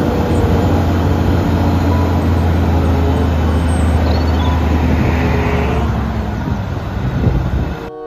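Eight-wheel tipper truck's diesel engine running with a steady low drone while its hydraulic ram raises the tipping body; the sound cuts off just before the end.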